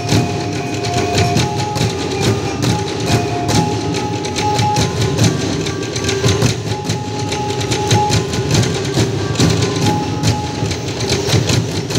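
Percussion-driven folk dance music: a fast, steady beat of struck percussion with short melodic notes over it.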